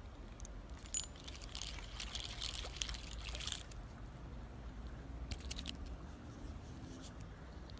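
A small bass splashing at the surface of a shallow creek as it is reeled in and grabbed by hand: a sharp click about a second in, a couple of seconds of splashing, then shorter splashes as it is lifted out.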